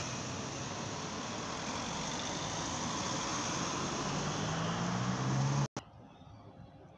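Cars driving out through a gate, tyre and engine noise on wet tarmac, with an Audi SUV's engine hum growing louder and rising in pitch as it comes close. Near the end it cuts off suddenly to much quieter outdoor sound.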